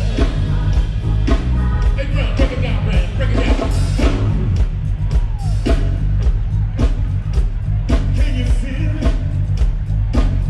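Rock and roll song with a singer over a heavy bass line and a steady drum beat.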